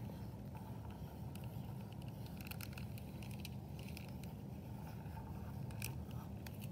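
Faint soft scraping and small clicks of a paintbrush handle swirling through a layer of shaving cream, over a steady low hum.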